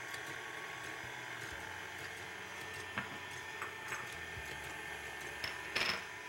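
Egg whites being whisked in a bowl until frothy: a steady whir with a few light clicks, and a short louder scrape near the end.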